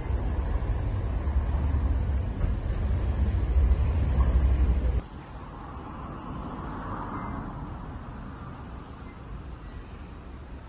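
Outdoor background noise with a heavy low rumble, which drops suddenly to a quieter, even hiss about five seconds in.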